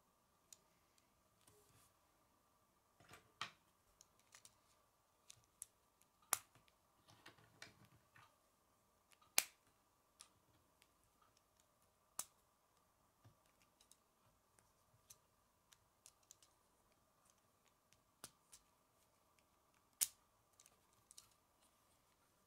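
Plastic K'nex rods and connectors clicking and snapping together as they are fitted by hand: scattered sharp clicks, the loudest about six, nine and twenty seconds in, over a faint steady hum.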